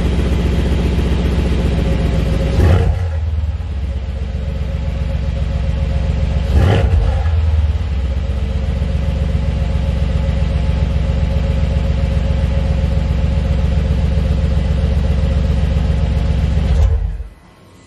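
Mercedes-AMG C63 S twin-turbo V8 idling through its stock valved exhaust in Sport+ mode. The exhaust valves are set to 'Powerful Exhaust'. Two short throttle blips come about four seconds apart, then it settles back to a steady idle that stops abruptly near the end.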